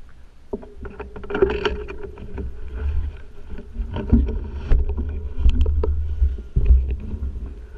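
Mountain bike riding over a gravel track: uneven wind rumble on the camera microphone, with frequent clicks and rattles from the bike and its tyres on the gravel.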